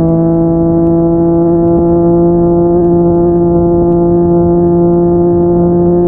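Yamaha MT-09's three-cylinder engine through a Yoshimura R55 slip-on exhaust, running loud and steady in one gear, its note creeping slowly upward under gentle acceleration.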